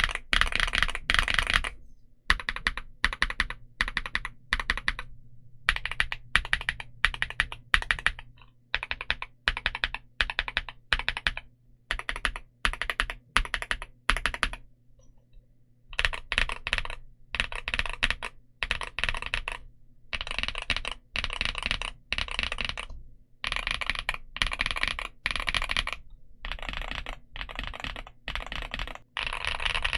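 Typing on a Yunzii AL65 mechanical keyboard with Gateron Zero switches: quick runs of key clacks in bursts of a second or two with short breaks, including a pause of about a second and a half midway.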